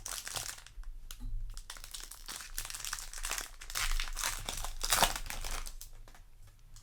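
Foil booster-pack wrapper crinkling in irregular bursts as it is handled and opened, with small clicks of the packs and cards being handled.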